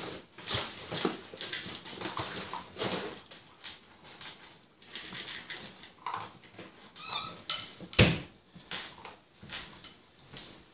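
Great Pyrenees puppy eating dry kibble from a small bowl: irregular crunching and chewing with the bowl clinking, and one sharp knock about eight seconds in.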